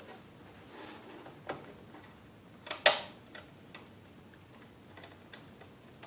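Scattered light clicks and taps of plastic parts being handled as a garage door opener's housing is put back together, with one sharp, loud snap about three seconds in.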